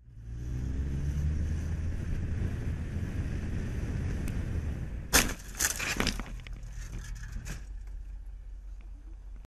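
Motorcycle engine running and picking up speed, then a sharp crash about five seconds in followed by a second or two of knocks and scraping as the bike goes down. The engine sound carries on more quietly afterwards.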